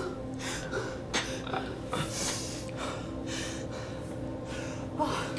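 A woman crying in repeated gasping breaths, a short breath about every half second, over a faint steady hum.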